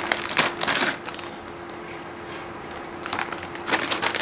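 Plastic zip-lock bag crinkling and rustling as small engine parts are handled, in two bouts: one in the first second and one near the end. A faint steady hum runs underneath.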